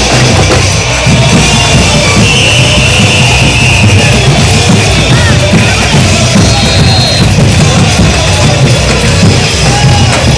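Carnival batucada drum section playing together at full volume: deep bass drums keep a dense, driving beat under a busy layer of higher drums.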